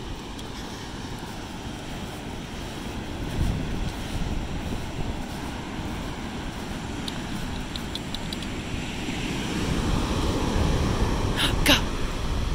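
Surf washing on the shore under a steady rumble of wind on the microphone, growing somewhat louder toward the end. A couple of short, sharp clicks come about a second before the end.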